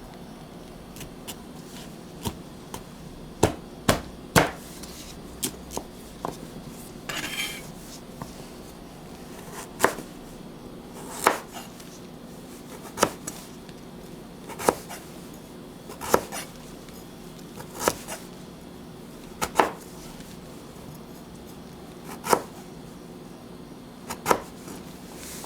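Knife chopping on a cutting board: sharp single strikes, three in quick succession about four seconds in, then a steady chop roughly every one and a half to two seconds, over a constant low hum.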